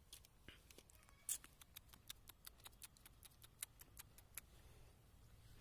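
Near silence with a run of faint, sharp clicks, about four to five a second, that stop about four and a half seconds in.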